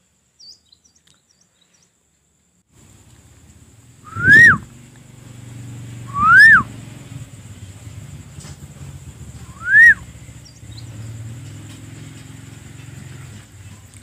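A person whistling three loud single notes a few seconds apart, each rising and then falling in pitch, to call a tame bird down from a branch.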